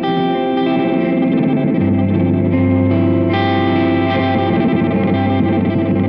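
Electric guitar, a Yamaha Revstar, played through a Caline G-010 Parrot digital delay pedal: sustained notes and chords ring on, overlapping with their delay repeats. A low note comes in about two seconds in, and a brighter chord is struck a little after three seconds. The repeats carry a light modulation.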